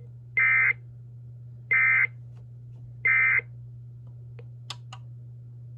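Three short bursts of EAS (SAME) digital data tones, the warbling two-tone End of Message code sent three times about a second apart, marking the end of the emergency alert. A steady low hum runs underneath, with a few faint clicks near the end.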